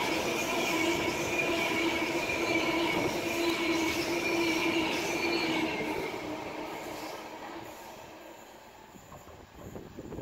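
Class 390 Pendolino electric train passing on a tight curve, its wheels squealing with a steady high-pitched tone over the rumble of the wheels, fading away after about six seconds.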